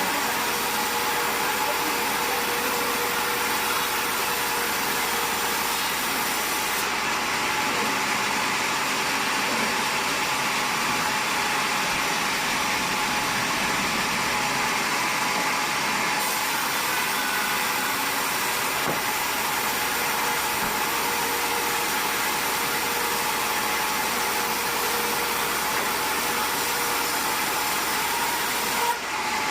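Sawmill machinery running steadily: a constant mechanical hiss with a faint steady whine, briefly dipping near the end.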